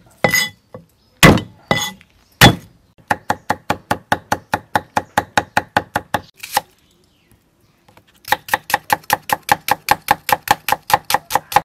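Cleaver chopping on a wooden chopping board, mincing garlic and slicing shallots. It starts with a few single heavy blows, then a rapid, even run of chops at about six or seven a second, a short pause, and a second rapid run.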